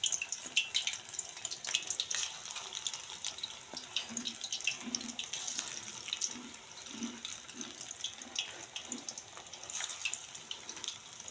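Gram-flour hinche (buffalo spinach) fritters deep-frying in hot oil in a small aluminium kadai: a steady hiss with many small crackles and pops.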